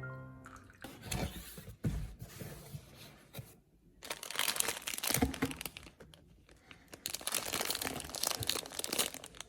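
Plastic wrapping crinkling and tearing in irregular bursts as a package is opened, loudest about four to five seconds in and again near the end.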